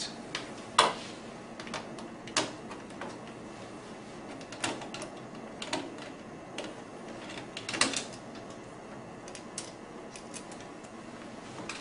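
Irregular light clicks, taps and clinks of a screwdriver and hands handling parts on the sheet-metal frame of a partly dismantled HP LaserJet 1320 laser printer, with the sharpest knock about a second in and a small cluster about eight seconds in.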